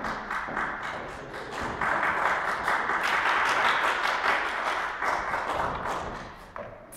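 Audience applauding in a hall: dense clapping that swells about two seconds in and dies away near the end, followed by one sharp tap.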